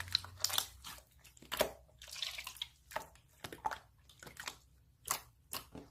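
Slime being squished and pulled by hand, making scattered small clicking pops and squishes with short quiet gaps between them.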